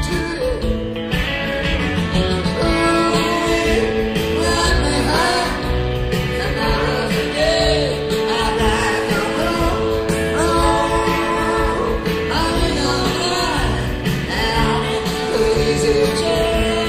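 A song plays throughout: a singing voice over a band with guitar.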